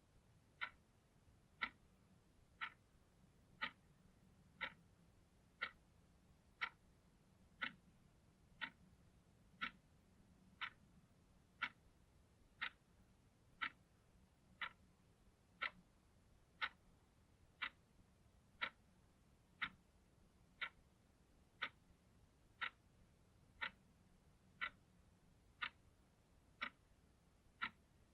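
Analog clock ticking steadily, one short, crisp tick about every second at an even pace.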